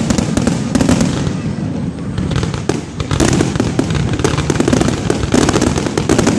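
Aerial fireworks shells bursting in a dense, rapid barrage: booms and crackles over a constant rumble. It thins briefly about three seconds in, then fills back in.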